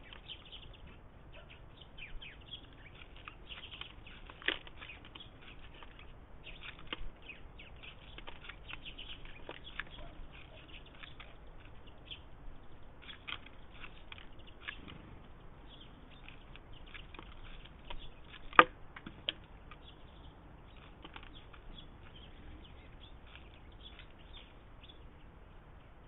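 Eurasian jay pecking and rummaging through sunflower seeds and hazelnuts in a wicker feeder basket: a steady scatter of light clicks and seed rattles, with a sharper knock about four seconds in and a louder one about two-thirds of the way through.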